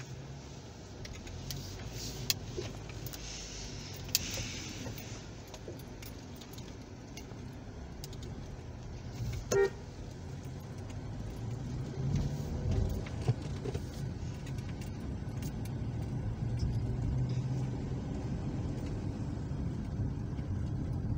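Inside a car driving slowly: the engine and road noise make a low, steady hum that grows a little louder over the stretch. Light jingling clicks come from loose items in the cabin, and there is a short toot about ten seconds in.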